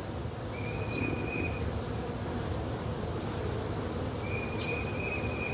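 Honeybees buzzing around an opened hive: a steady, dense hum of many bees in flight, the colony stirred up and flying at the beekeeper during the inspection.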